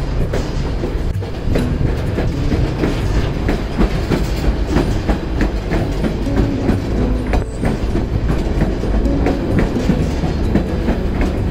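White Pass & Yukon Route narrow-gauge passenger train rolling along, heard from on board: a steady low rumble from the cars, with the clickety-clack of wheels over the rail joints.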